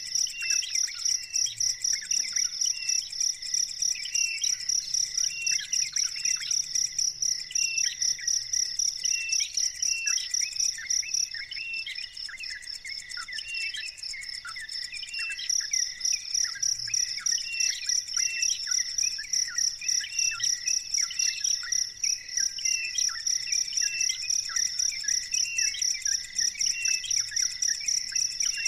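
A cricket chirping in a fast, regular pulsed trill that pauses for a few seconds midway, with short, repeated bird chirps underneath.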